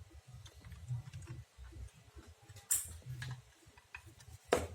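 Hardware being handled: scattered small clicks and taps over a low rumble of handling, with a sharper click just under three seconds in and a louder knock near the end.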